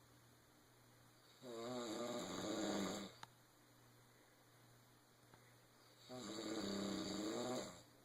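Snoring: two long, pitched snores about four and a half seconds apart, each lasting about a second and a half, with a short click just after the first.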